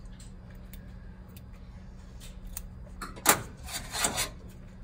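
Gloved hand handling a pig lung on a plastic cutting board while dissecting away the aorta: a sudden short rubbing scrape about three seconds in, then a longer rustling rub about a second later, over a steady low hum.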